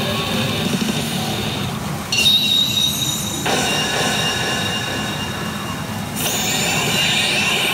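Hokuto no Ken Kyukyoku Ransei pachinko machine playing its electronic effects as the reels line up 3-3-3 for a jackpot: a sudden burst of high ringing tones about two seconds in that cuts off about a second and a half later, and another near the end, over a steady loud din.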